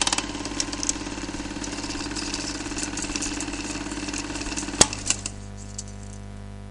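Intro sound effect under a channel logo: a steady low hum with scattered light clicks and one sharp click about five seconds in, dying away at the end.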